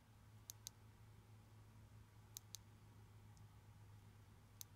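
Ledlenser MH8 headlamp's push switch clicking: three quick double clicks, a press and a release each, about two seconds apart, with near silence in between.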